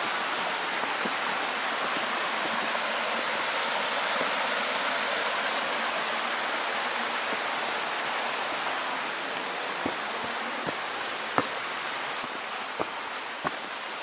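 Steady rush of a river flowing over rocks. A few sharp taps, likely footsteps, come near the end as the water noise eases a little.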